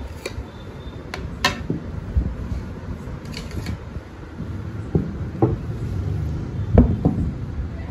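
Ceramic dinner plates and small bowls being set out on a cloth-covered table: scattered light clinks and knocks a second or two apart, over a low steady rumble.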